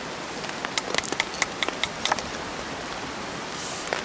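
Steady rain on a nylon poncho strung overhead as a tarp, with a run of sharp ticks in the first half.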